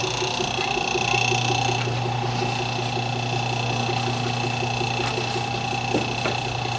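Electric motor of a jet ski lift running steadily, a hum with a higher whine over it and a fast, even ticking from its drive.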